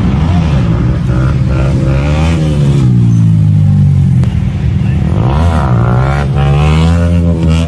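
High-performance vehicle engines revving loudly, pitch sweeping up and down several times over a steady low engine note, with the biggest rev swings about two seconds in and again around five to six seconds in.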